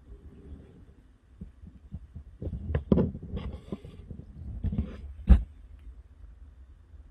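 Low thumping rumble close to the microphone, with a cluster of rustles and knocks about halfway through; the loudest is a sharp knock about five seconds in.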